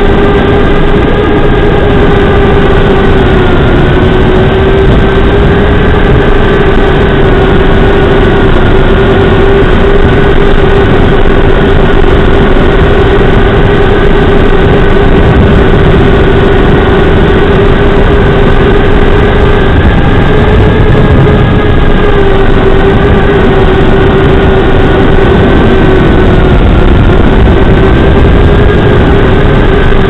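Brushless motors and four-bladed props of a small FPV quad (Xing 1404 motors) buzzing in flight, picked up by the Zeus Nano VTX's onboard microphone: a loud, steady motor whine that dips briefly in pitch a few times, over a heavy hiss, with nothing above the mid treble, as through a small transmitter mic.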